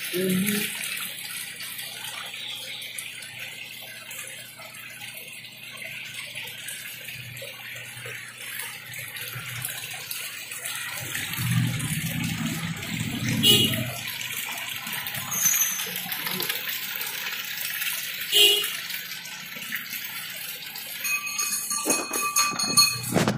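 Water pouring in a steady stream and splashing into fish tanks, a continuous hiss. A few sharp clicks occur partway through.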